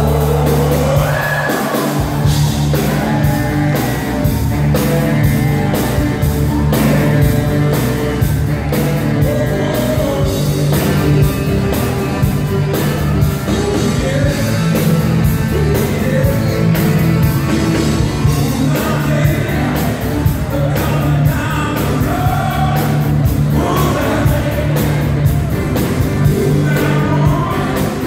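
Live band performance: a male lead singer singing over electric bass, electric guitar and drums keeping a steady beat. The bass drops out for a moment about a second in.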